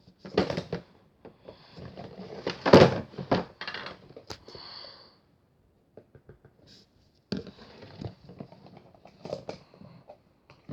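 Close handling noise: irregular rustling with clicks and knocks in two spells, pausing for about two seconds in the middle.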